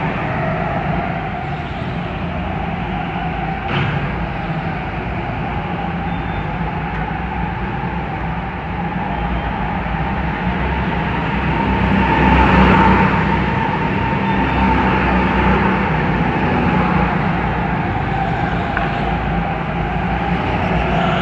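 A go-kart driving round an indoor track, heard from on board. A steady rumble runs under a whine that rises and falls with speed and is loudest a little past halfway.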